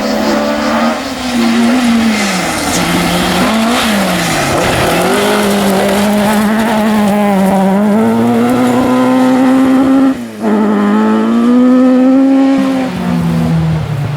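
Ford Escort RS rally car engine running hard under load, its pitch climbing through the revs and dropping at gear changes, with a sharp lift and shift about ten seconds in.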